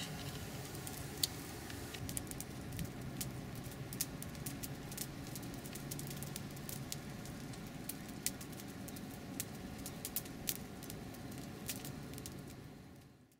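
Wood fire crackling in a raised metal fire pit: many irregular sharp pops and snaps from the burning branches over a steady low background.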